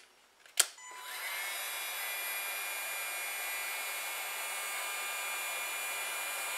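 A click, then a heat gun's fan spins up with a short rising whine about a second in and runs steadily, blowing hot air to shrink heat-shrink tubing over a soldered wire joint.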